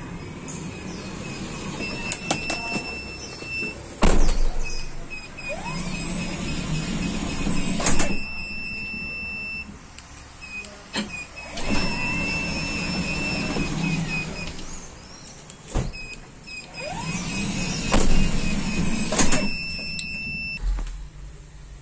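Motorised power sliding door of a Hyundai Solati van, an aftermarket Croco automatic unit, running through its open and close travel several times: a motor whirs for a few seconds at a time, with a hard knock as the door releases or latches, about four seconds in, about eight seconds in, and several times near the end. A repeated electronic beep sounds alongside.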